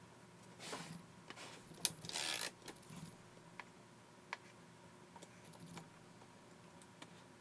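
Light metallic clicks and short rattles at irregular intervals, the loudest rattle about two seconds in, from the mechanism of a Louis Marx tin dial toy typewriter being worked by hand.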